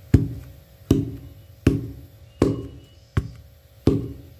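Wooden pestle pounding rice-flour dough in a stone mortar: six even thuds about three quarters of a second apart, each with a short ring from the mortar.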